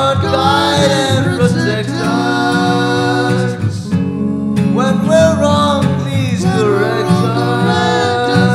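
A song: singing over guitar accompaniment, the voice moving in held, sliding notes.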